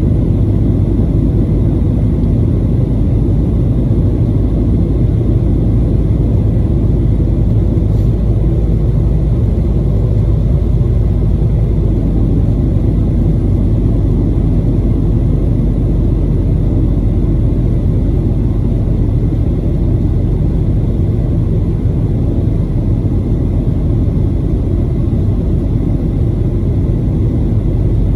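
Steady low rumble of engine and airflow noise inside the cabin of a Boeing 737-900ER in flight, with its CFM56-7B engines running.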